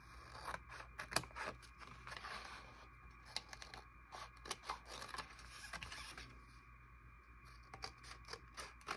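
Scissors snipping through paper, faint and irregular, with short sharp clicks of the blades and rustles of the sheets being handled.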